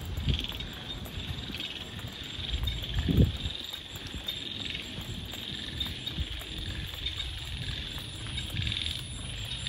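Night chorus of calling frogs and insects: repeated bouts of fast, high trilling that keep on throughout. A few low thumps break in, the loudest about three seconds in.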